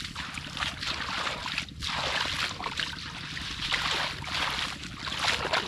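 Shallow muddy water sloshing and splashing in repeated swishes, about one a second, as someone wades or scoops by hand in a flooded rice field.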